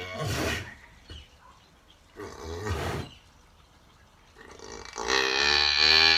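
Cow in labour groaning three times: two short groans, then a longer, louder one near the end, as she strains to push out her calf.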